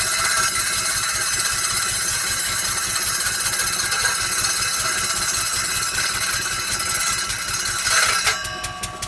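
Circular saw blade cutting through heavy plywood, a loud high rasp with a steady whine, over the regular firing beats of the single-cylinder Lister D engine driving it. The cut ends shortly before the end, leaving the engine running on its own.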